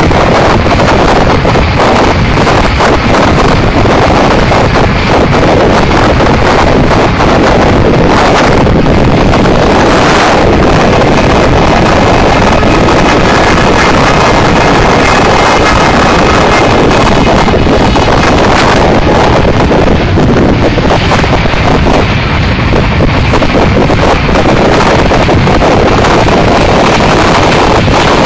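Wind blasting across the microphone held outside a fast-running express train, over the train's steady rumble and rattling wheel noise on the track. A loud, unbroken roar throughout.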